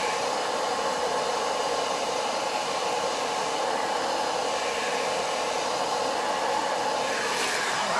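Handheld hair dryer running steadily on high, blowing hot air onto a cellophane gift-basket wrap to heat-shrink it tight.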